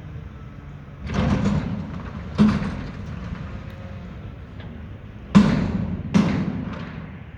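Mack McNeilus front-loader garbage truck working a dumpster: a rumbling clatter about a second in, then loud metal bangs, three of them sharp and each ringing out for about a second, over the low running of the truck.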